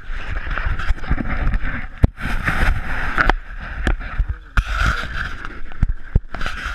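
Gusty wind and water noise on a small boat at sea, coming and going in waves, with a few sharp knocks.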